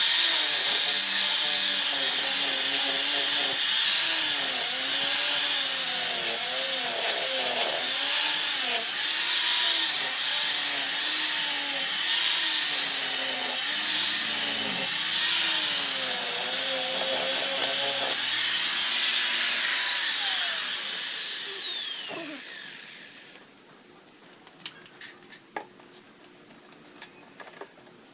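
Electric random-orbit sander running against wood, its whine dipping and recovering about once a second as it is pressed in. Near the end it is switched off and winds down, its pitch falling over a few seconds, followed by a few light clicks and knocks.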